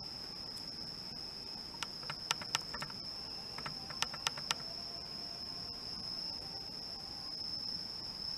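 Insects trilling steadily at one high pitch, with a few sharp clicks about two and four seconds in.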